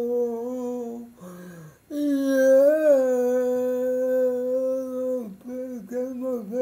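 A single voice singing unaccompanied, holding long steady notes. There is a short break about a second in, and the pitch wavers in shorter notes near the end.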